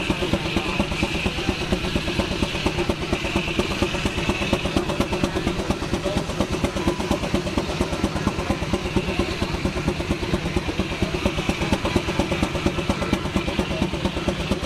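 Case steam traction engine's exhaust chuffing up the smokestack in a rapid, even beat as it works under load driving a sawmill.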